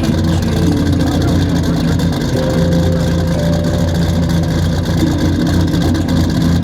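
Car driving at a steady cruise: continuous engine and road noise with a strong low hum and a few steady tones that shift in pitch now and then.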